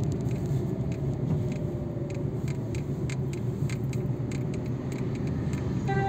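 Steady low road and engine rumble of a car driving through town traffic, heard from inside the cabin, with light irregular ticks and rattles.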